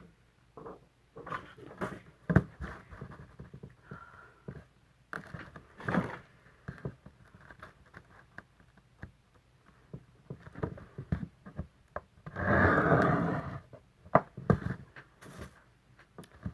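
Cardstock being scored along fold lines with a mechanical pencil that has no lead: short scratchy strokes and taps, with one longer, louder scratchy stroke about twelve seconds in.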